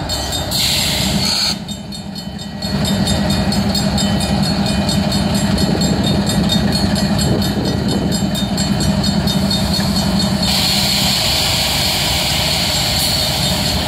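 Diesel locomotive idling with a steady low hum, stopped on the crossing, while the crossing signal's Safetran mechanical bell rings with rapid, even strokes.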